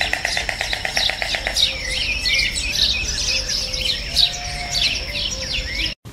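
Small birds chirping: a fast rattling trill for the first second and a half, then many quick, high, falling chirps, over a steady high-pitched whine.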